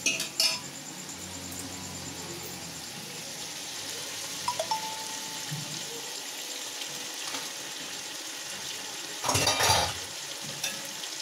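Chicken masala sizzling steadily in an aluminium pot, with a steel spoon stirring and clinking against the pot. A louder burst of clattering comes near the end.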